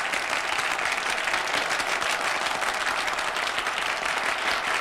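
Audience applauding steadily, a dense patter of many hands clapping, on a vinyl record of a live comedy performance.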